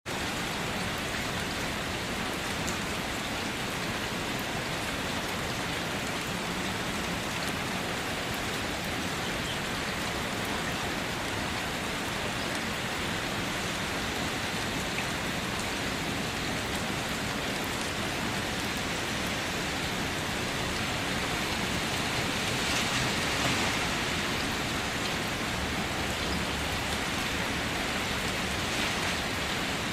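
Steady rain falling, an even hiss of many drops, briefly growing a little heavier about three-quarters of the way through.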